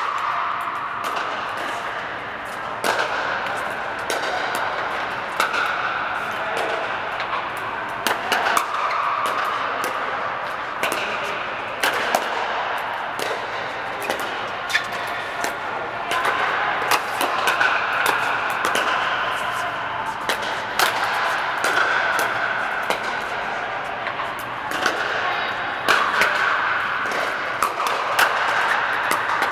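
Pickleball paddles hitting the hollow plastic ball: sharp, irregular pops from several courts, a few every second or two, inside a large air-supported dome, over a background of faint voices.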